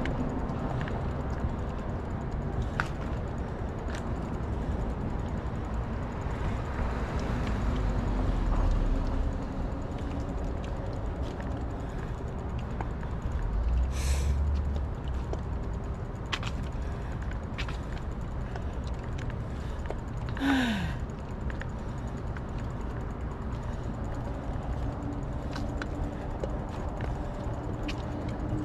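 A person breathing hard while walking a bicycle up a hill, over a steady background of outdoor noise. Low rumbles swell about 8 and 14 seconds in, and a short falling squeak comes about 20 seconds in.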